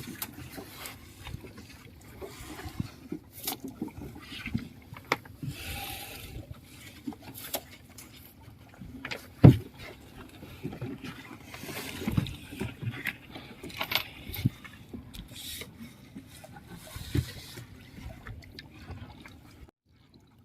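A fishing net being hauled by hand into a small boat: water splashing and dripping, with irregular knocks and thuds against the boat, and one loud thump about halfway through.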